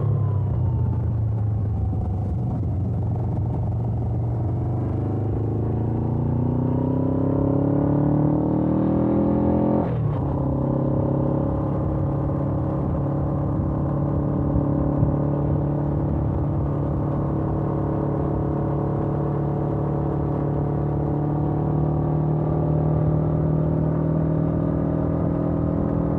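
Suzuki GS500F parallel-twin engine through its stock exhaust, ridden on the road. The revs fall at first, climb steadily under acceleration, then drop sharply about ten seconds in at an upshift, and the engine holds a steady cruise with the pitch slowly creeping up.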